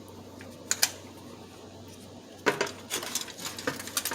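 Small hard objects being handled and set down on a work surface: a pair of sharp clicks just under a second in, then a quick run of clinks and taps over the last second and a half.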